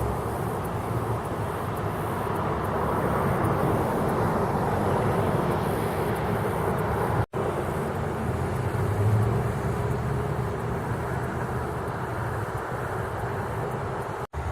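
Steady rumbling road noise of a car driving. It drops out for an instant twice, about halfway through and near the end.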